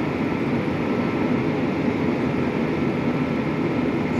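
Steady drone of a John Deere 9360R tractor's engine heard from inside its cab while it pulls a grain cart slowly through the field, with no change in pace.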